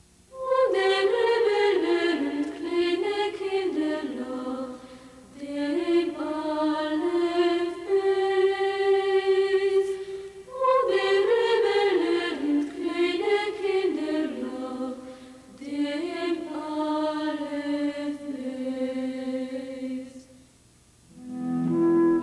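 Music: a single slow, ornamented melody line in a chant-like style, in four long phrases with short breaks between them. Near the end, other instruments come in with steadier held notes.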